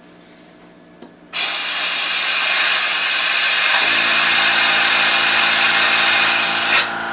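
Compressed air hissing from an air hose blown into a countertop dishwasher's drain to clear sunflower seeds plugging it, the cause of its E4 error code. The hiss starts suddenly about a second in and stops with a short sharp blast near the end. A steady motor hum, the air compressor running, starts about halfway through and keeps going.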